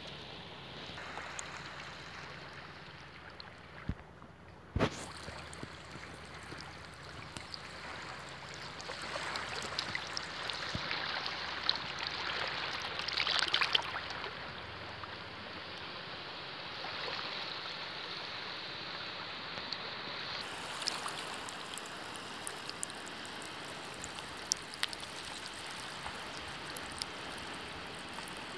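Shallow seawater washing over and trickling between the rocks of a low-tide reef shore, swelling louder around the middle. Two sharp knocks sound about four and five seconds in.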